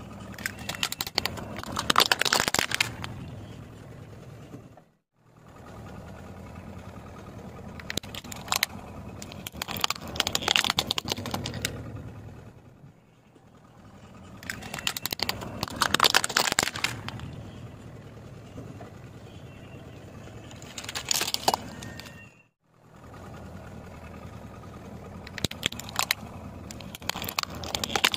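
Car tyre rolling slowly over hard plastic toys, cracking and crunching them in several separate passes, each a cluster of sharp snaps. The car's engine runs low and steady underneath.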